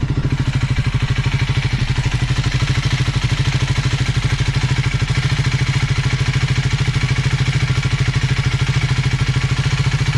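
Triumph Scrambler 400 X's single-cylinder engine idling steadily with an even beat. The owner hears no engine knock in it and takes the engine for perfectly fine.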